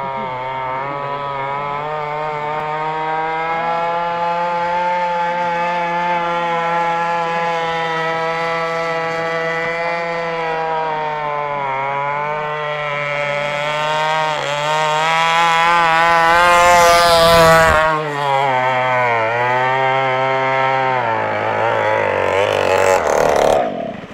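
Small two-stroke gasoline engine of a radio-controlled racing boat running hard on the water, its pitch rising and dipping as the throttle is worked. There is a loud rushing burst about two-thirds of the way through. Right at the end the engine drops to a lower pitch and cuts back sharply as the boat slows.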